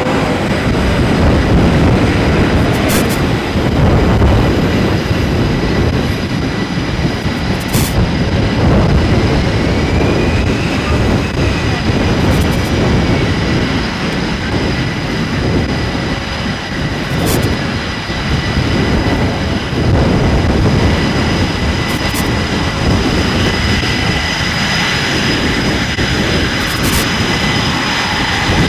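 Carrier flight-deck noise: jet engines running nearby, a steady high whine over a continuous rumbling rush. A faint high tick comes about every five seconds.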